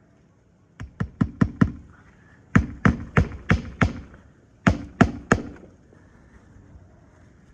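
Hammer driving roofing nails to fasten a replacement asphalt shingle: three runs of sharp blows, a few a second, about five, then five, then three.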